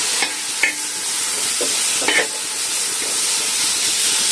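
Onion and spice masala frying with a steady sizzle, chopped tomato just added, while a spoon stirs it round the pan with a few short scrapes.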